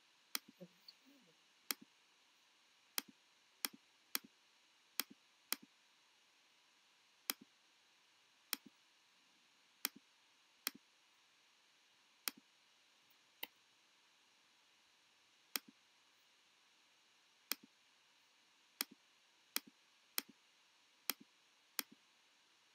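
Sharp, separate clicks of a computer keyboard and mouse, irregularly spaced and often in quick pairs, about twenty in all.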